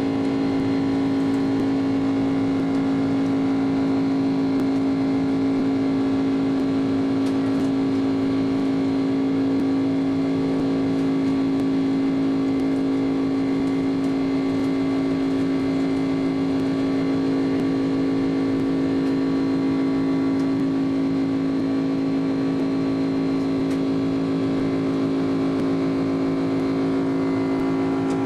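Airbus A300-600's jet engines heard from inside the cabin, a steady drone with a strong low tone and several higher steady tones that neither rise nor fall.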